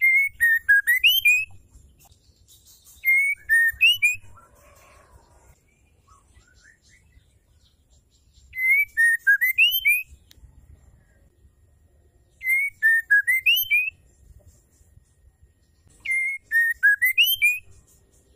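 Female white-rumped shama singing the same short whistled phrase five times, a few seconds apart: each phrase is a quick run of clear notes that dip and then climb, lasting about a second and a half.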